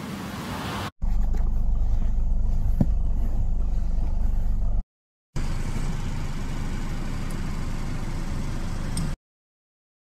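Wind noise on a phone's microphone during a snowstorm: a steady rushing hiss with a heavy low rumble. It comes in short stretches that cut off abruptly with brief silent gaps, and stops dead about a second before the end.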